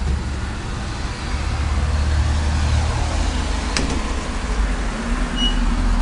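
DEVE hydraulic elevator running, a steady low hum and rumble from its pump and moving car, with a single sharp click about four seconds in.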